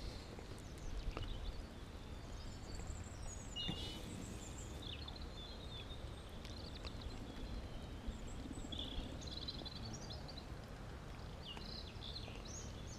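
Outdoor ambience at a fishing pool: small birds chirping on and off over a steady low rumble.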